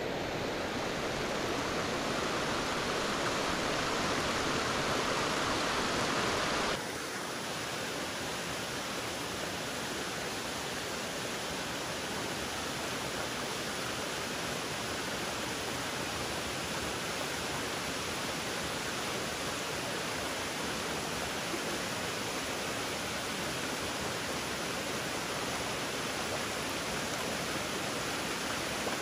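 Steady rushing of a tall waterfall pouring down a rock face. About seven seconds in the rush abruptly becomes slightly quieter and then holds steady.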